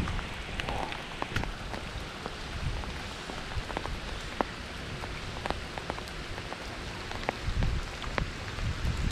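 Rain from an arriving thunderstorm falling steadily, with many separate drops ticking sharply close by.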